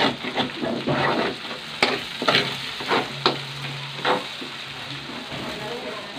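Chopped onion, garlic and ginger sizzling in hot oil in a wok while being stirred, with the spatula scraping and tapping against the pan several times.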